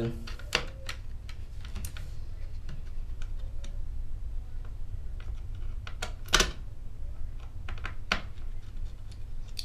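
Scattered light clicks and taps as hands fit the SSD and its retaining bracket into an open MacBook Pro's drive bay, with one sharper click about six seconds in, over a low steady hum.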